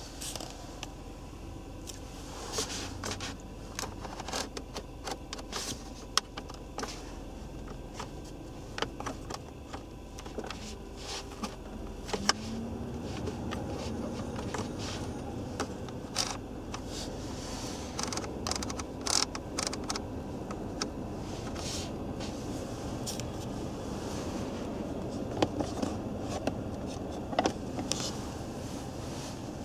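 Repeated clicks of the Skoda Octavia II's climate control buttons and rotary knobs being pressed and turned, over a steady hum of the ventilation fan inside the car's cabin. The hum gets louder about twelve seconds in.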